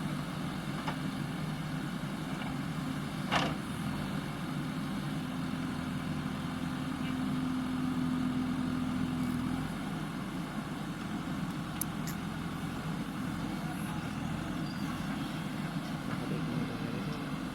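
JCB backhoe loader's diesel engine running steadily, holding a steady, slightly louder pitch from about four seconds to ten seconds in. A single sharp knock about three seconds in.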